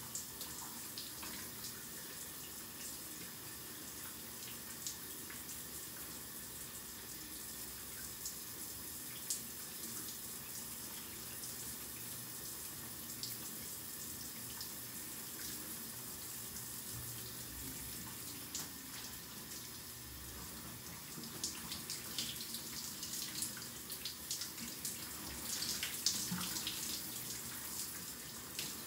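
Shower running: a steady hiss of water spray splashing in a small tiled bathroom, with scattered sharper splashes that come more often near the end.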